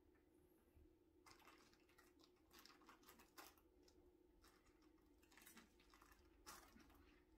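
Faint crinkling and rustling of a fabric cat tunnel as cats move in and around it, in a string of short rustles starting about a second in.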